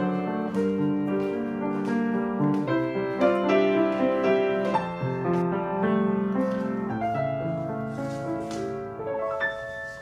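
Background piano music: a melody over sustained chords.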